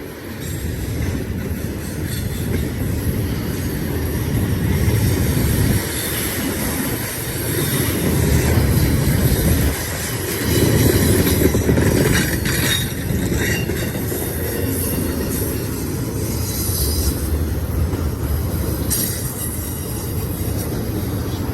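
BNSF intermodal freight train's cars rolling past on a curve: a steady low rumble of wheels on rail, with high wheel squeal coming and going several times as the flanges grind through the bend.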